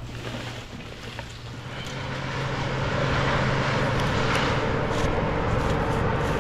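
An engine running steadily at an even pitch, growing louder about two seconds in and then holding.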